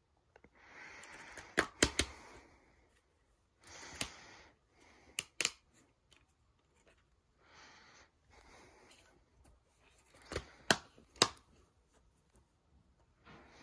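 Plastic DVD case being handled: rustling, with sharp plastic clicks as the case is opened and a disc is taken off its centre hub. The loudest clicks come in quick pairs, about two seconds in and again near the end.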